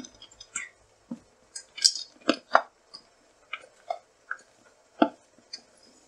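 Spatula stirring chocolate chips in a stainless-steel bowl over a double boiler: irregular scrapes and knocks against the metal as the chips are pushed around, loudest about two seconds in and again near five seconds.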